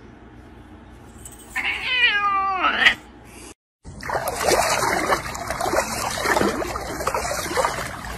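A cat gives one long, wavering meow that slides down in pitch, about two seconds in. After a brief break, water splashes and rushes steadily as a dog wades in a shallow stream.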